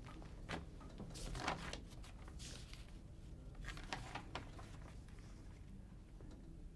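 Pages of a large ledger turned by hand: a few soft paper rustles and flicks.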